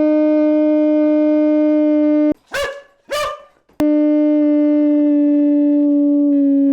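A dog's long, steady howl, falling slightly in pitch. It breaks off about two seconds in for two sharp barks, then resumes.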